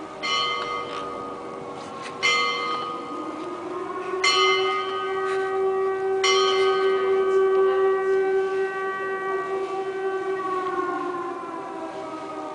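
Civil defence air raid siren wailing during a drill: its pitch climbs about three seconds in, holds, and slides back down near the end. A church bell strikes four times, two seconds apart, over it.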